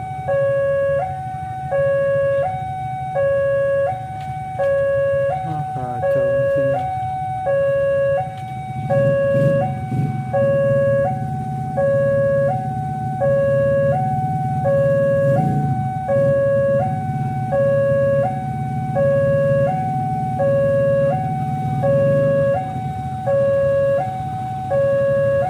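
Railway level-crossing warning alarm sounding a steady high-low two-tone signal, about one cycle a second. About eight seconds in, the low rumble of the approaching train's diesel locomotive builds underneath.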